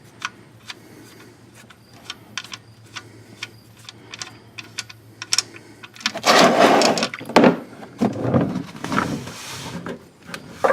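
Wrench clicking as it loosens the 15 mm oil drain plug under a GM Ecotec 2.2L engine. About six seconds in, the oil lets go and splashes loudly into the drain pan, then keeps pouring.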